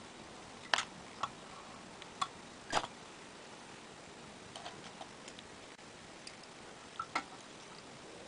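Scattered light clicks and taps from fly-tying tools, a wire whip-finish tool against the vise and hook, while the thread is being tied off, over a steady faint hiss. The clicks come at irregular intervals, a few in the first three seconds and two more near the end.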